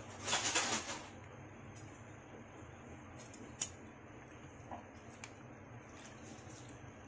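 Metal tongs clicking against an aluminium pot while spinach leaves are pressed and turned in water for blanching. There is one sharp click a little past halfway and a few softer ones after it. A short noisy rustle comes near the start, over a steady low hum.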